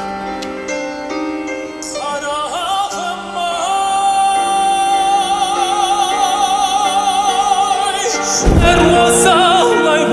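Operatic-style singing over instrumental backing. The voice climbs and then holds one long note with wide vibrato, and a deep low hit comes in near the end.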